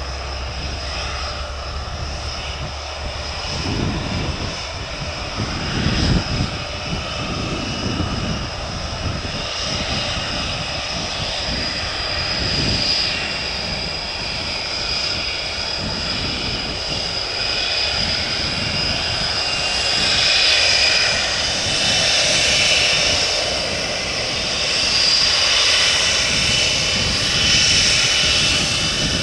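Panavia Tornado IDS's twin RB199 turbofan engines running with a steady roar and a high whine, growing louder toward the end.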